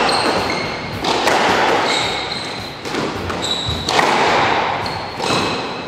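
Squash rally: the ball hitting rackets and the court walls about every second, each hit echoing, with sneakers squeaking on the wooden court floor in short high squeals between hits.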